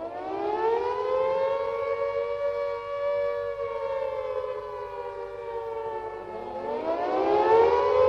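Air-raid siren wailing. Its pitch winds up and holds, sags slowly, then winds up again about six seconds in.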